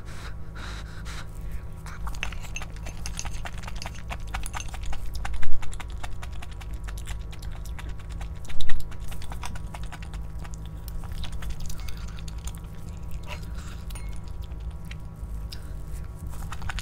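A person eating close to the microphone: chewing with many small clicks, and two much louder short sounds about five and a half and eight and a half seconds in.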